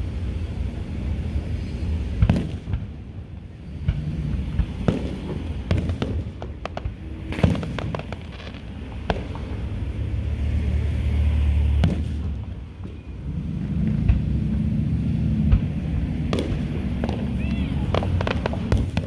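Aerial fireworks display: shells launching and bursting in a run of sharp, irregular bangs and crackles over a steady low rumble.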